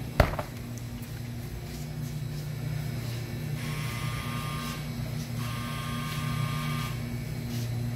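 A glass freezer door shuts with a single sharp thump just after the start, then a steady low hum from the refrigerated freezer cases runs on, with a fainter higher hiss in two stretches in the middle.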